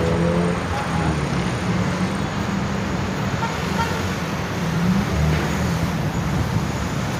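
Busy road traffic heard from above: car and bus engines running and tyres on the road, a steady continuous noise.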